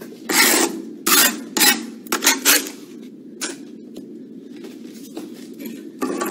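Steel mason's trowel scraping excess mortar off a freshly laid brick course: a quick run of short scrapes in the first couple of seconds, one more about halfway through, and another near the end.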